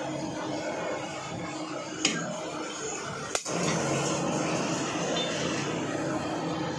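Two sharp chops of a heavy curved butcher's knife cutting through goat trotters and striking a wooden log chopping block, about two seconds in and again a second and a half later, over steady background noise.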